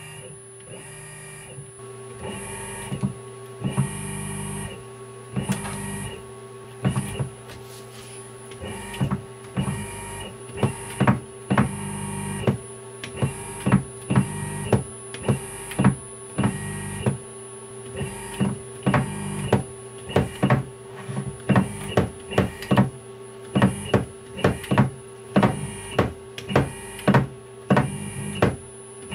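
AC servo motor with a timing-belt pulley on its shaft, making rapid short starts and stops under high acceleration. A steady hum runs under a sharp click at each move. The clicks come about once a second at first and roughly twice a second in the second half.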